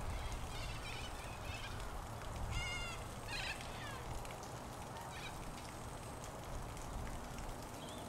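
Steady rain falling, with a few short, high bird calls over it, the clearest about two and a half and three and a half seconds in.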